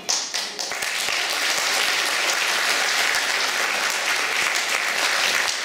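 Theatre audience applauding: the clapping breaks out all at once and holds steady, a dense patter of many hands.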